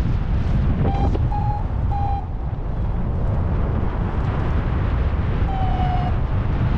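Strong, steady wind buffeting the microphone in flight, a paraglider in the air. Over it, a flight variometer beeps three times about a second in, then gives one longer, slightly falling beep near the end.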